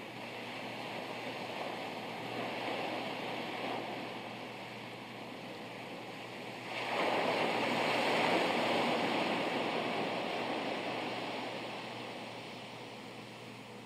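Ocean surf washing onto a beach: a steady wash, with a wave surging in louder about seven seconds in and then slowly dying away.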